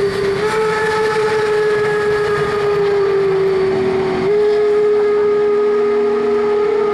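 Steam locomotive whistle blown in one long, unbroken blast, its pitch sagging slightly and jumping back up twice, about half a second in and a little after four seconds.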